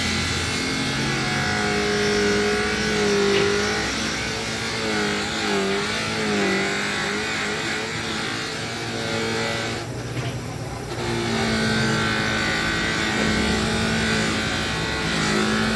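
A handheld electric polishing machine runs continuously on the headlight lens. Its motor hum wavers in pitch as pressure on it changes and sags briefly about ten seconds in.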